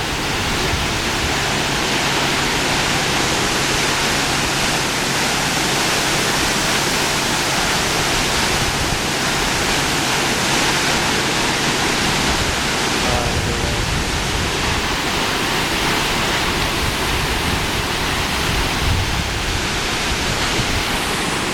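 Steady rushing of a waterfall, with a rental car's engine running fast underneath as a low hum that stops about halfway through.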